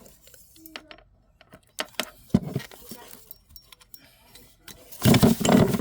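Loose metal sockets clicking and clinking as they are picked through, with a louder, dense metal rattle near the end as they are shuffled together.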